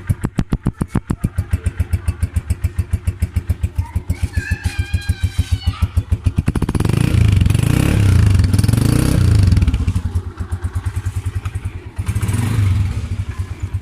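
2020 Honda CG 125's single-cylinder four-stroke engine idling with even, rapid exhaust pulses. It is revved up about six and a half seconds in and held for a few seconds, then given a short blip near the end.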